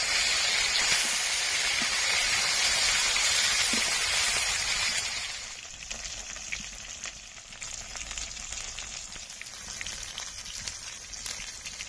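Tangra fish frying in hot oil in a kadai: a loud, even sizzle that dies down sharply about halfway through to a quieter hiss with scattered small pops and crackles.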